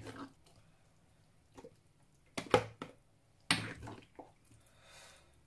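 A ladle knocking and scraping against a cooking pot as thick okra soup is scooped out, with soft wet plops of soup. A handful of separate sharp knocks, the two loudest in the middle.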